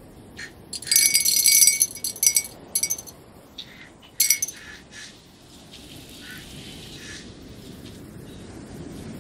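Small hard pieces poured from a small glass jar into a tall glass bottle, clinking and rattling against the glass in a dense burst about a second in and a few single clinks over the next three seconds. After that there is a steady faint hiss.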